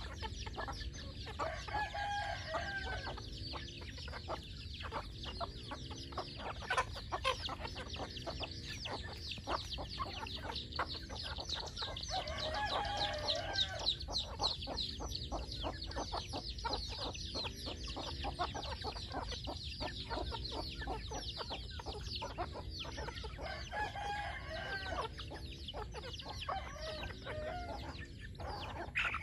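Chickens clucking, with a rooster crowing three times, about ten seconds apart; fast high chirping runs under it throughout.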